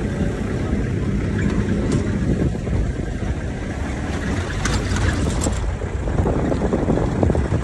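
Wind buffeting the phone's microphone: a steady low rumble, with a few faint ticks about five seconds in.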